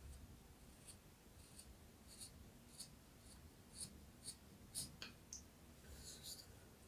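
Small carving knife paring thin cuts from a wooden spoon by hand: a run of short, faint scraping strokes, about two a second, a few of them sharper near the middle.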